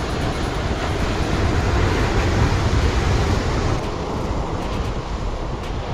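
Sea surf and wind buffeting the microphone: a steady rushing noise, heaviest in the low end, easing slightly about four seconds in.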